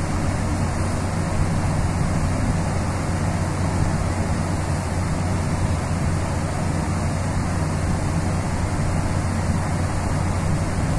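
Car ferry under way: a steady low drone from the ship's engines, with an even rush of wind and water.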